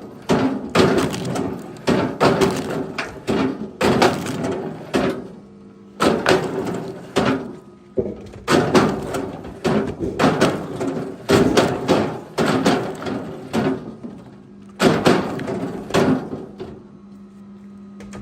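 Wooden knocks and thuds in an irregular run, often one or two a second, each with a short ring. Near the end the knocks thin out and a faint steady hum comes in.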